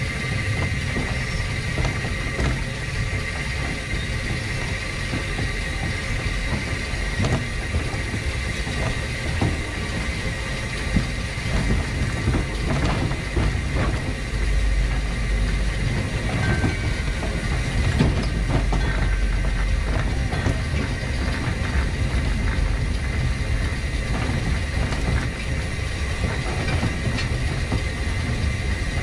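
1915 Orenstein & Koppel steam tram locomotive running light along the track: a steady rumble of wheels on rail with scattered clicks and a constant hiss. The low rumble grows heavier for several seconds midway.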